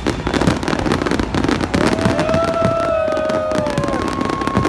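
Aerial fireworks bursting and crackling in a dense string of pops, with a few long whistling tones starting about two seconds in.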